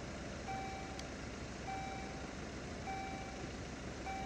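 Railway level crossing warning signal beeping: a steady electronic tone about half a second long, repeating about every 1.2 s, four times, as the crossing closes for an approaching train.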